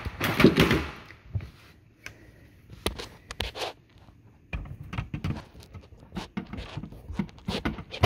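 Small scattered clicks, taps and scrapes of a tool and wire connector against the spade terminals and sheet-metal base of a dishwasher's heating element as its wires are worked off, with a burst of rustling handling noise about half a second in.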